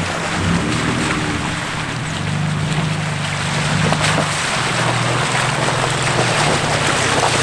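Vehicle running: a steady low engine drone under a rushing noise of tyres and wind.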